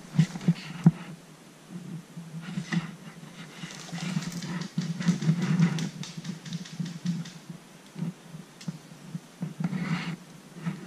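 Rustling, scuffing and knocking as someone moves through forest undergrowth carrying the camera, with a few sharp thumps in the first second and a busier stretch of rustle in the middle.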